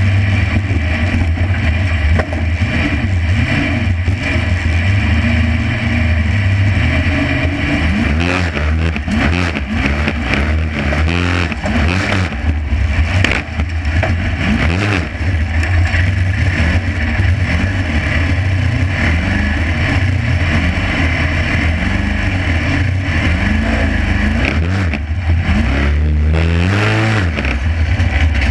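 Formula Offroad competition car's engine running hard, heard close from a camera mounted on the car's body; from about eight seconds in the revs rise and fall over and over.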